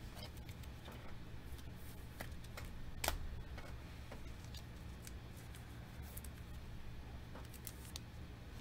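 Trading cards handled by hand: soft clicks and slides as cards are flipped and tapped onto a stack, with one sharper snap about three seconds in, over a steady low hum.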